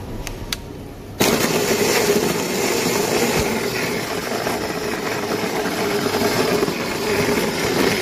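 Heavy-duty blender running at high speed, its blades churning the contents of a plastic jug. After two short clicks near the start, it gets abruptly much louder about a second in and then runs steadily.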